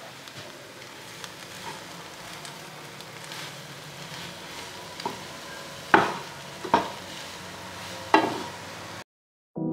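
Noodles and vegetables sizzling faintly in a nonstick frying pan while a wooden spatula stirs and scrapes them, with several sharp knocks of the spatula against the pan in the second half. The sound cuts off near the end.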